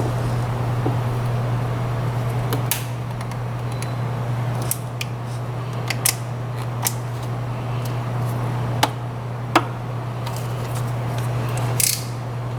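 Scattered sharp clicks and light clanks of hand tools and fittings as a coolant hose and its clamp are worked back onto the engine, over a steady low hum.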